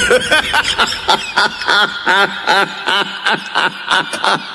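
A man's loud, booming laughter, a guffaw: a long even run of 'ha' bursts, about three a second, each falling in pitch.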